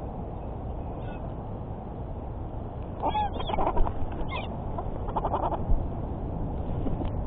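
Birds calling at a feeding spot: a burst of short pitched calls and a quick rattling run of notes from about three seconds in, over a steady low background rumble.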